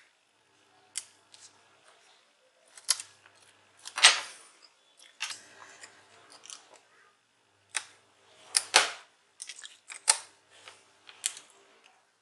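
Irregular sharp clicks and knocks of plastic laptop parts being handled as a Lenovo Ideapad 100 keyboard is laid onto the laptop's top case. The loudest knocks come about four seconds in and again around nine seconds.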